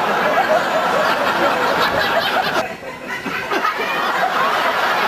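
Audience laughing together, a dense mass of many voices that drops away briefly a little under three seconds in, then picks up again.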